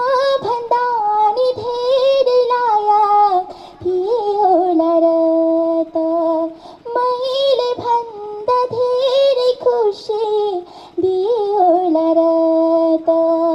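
A young female voice singing a slow Nepali song into a microphone, holding long notes with a slight waver and sliding between pitches, over a soft backing with a few light taps.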